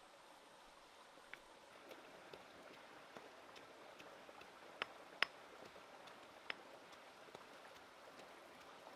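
Faint crackle of a wood cooking fire with a catfish roasting over it on a stick: a soft hiss with scattered sharp pops, the loudest pair about five seconds in.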